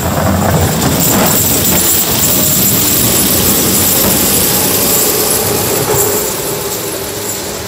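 Wheel-loader snowplough working past at close range: its diesel engine running under load while the front blade pushes snow along the road. The sound fades near the end as it moves away.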